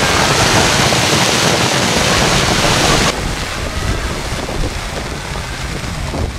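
Dense crackling hiss of aerial fireworks for about three seconds, cutting off suddenly, followed by a softer low rumble of outdoor noise.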